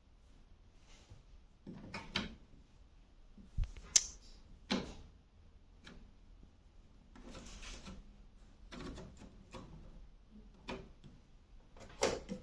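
Scattered clicks, knocks and rustles of things being handled, with a sharp click about four seconds in the loudest.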